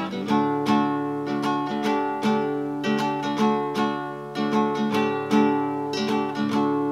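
Credits music on acoustic guitar: plucked notes and chords struck about twice a second, each ringing on.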